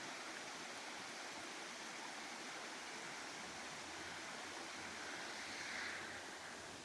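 A creek's flowing water, a steady faint rush.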